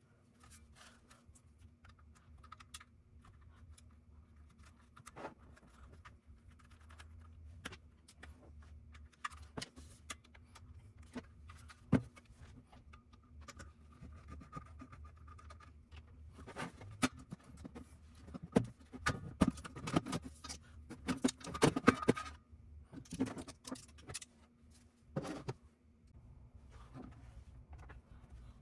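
Scattered clicks, taps and light scraping of small parts and tools being handled while an eGPU enclosure is taken apart, with a dense run of clicks in the second half. A faint steady hum runs underneath.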